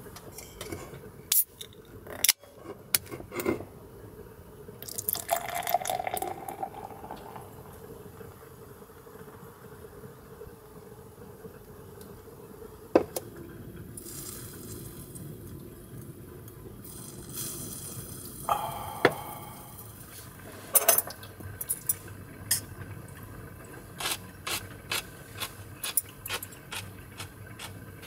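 Beer poured from a can into a glass, a fizzing pour about five to seven seconds in, with several sharp clinks and taps of glass and can on a wooden counter over a steady low hiss.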